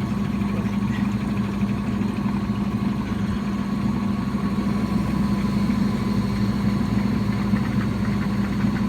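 Haier JW-K50H washing machine running its spin cycle: a steady motor hum with vibration, even in level throughout.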